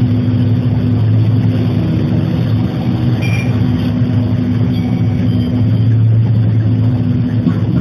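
City bus's diesel engine idling steadily, a low continuous hum, while the bus is stopped.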